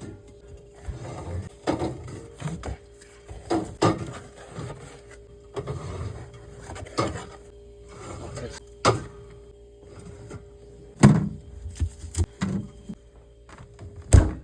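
Drink cans and bottles being set into a mini fridge: an irregular series of knocks and clinks, the loudest two near the end, over a faint steady hum.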